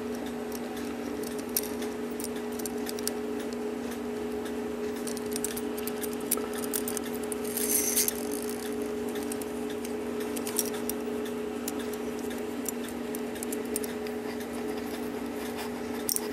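Small clicks and light metallic rattles from a brass Regula cuckoo clock movement being handled and its wheels wiggled to check for worn pivot holes, over a steady low hum. There is a brief rustle about eight seconds in as the movement is turned.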